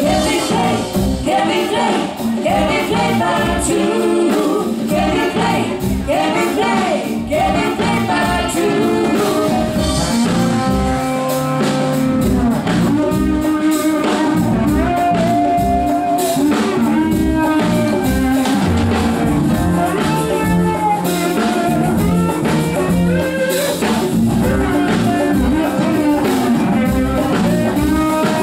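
Live band music: women singing over electric guitar, bass guitar, keyboards and drums.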